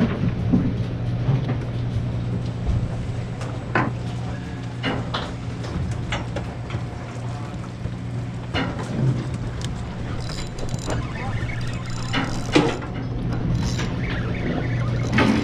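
A party boat's engine running with a steady low hum, with scattered sharp clicks and knocks on top.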